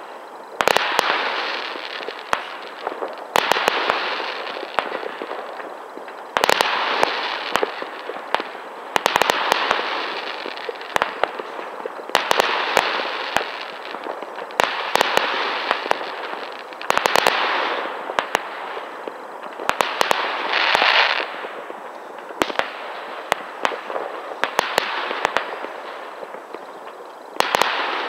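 Aerial fireworks bursting: clusters of sharp bangs every two or three seconds, each trailing off in a fading hiss.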